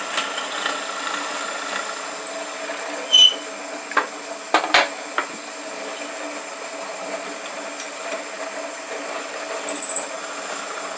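Shopsmith running as a drill press with a steady motor hum, boring a depth-stopped hole into wood. A few sharp knocks come between about three and five seconds in.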